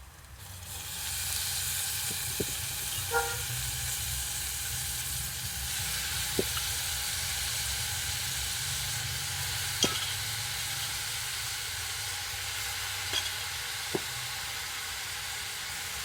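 Finely chopped beetroot, wet from washing, sizzling in hot coconut oil with onions in a pan. The sizzle comes up within the first second and stays steady, with a few sharp knocks of a spatula against the pan while it is stirred.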